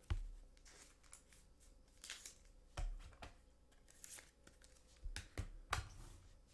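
Faint rustling and sliding of trading cards and their packaging being handled, with several light knocks, three of them close together about five seconds in.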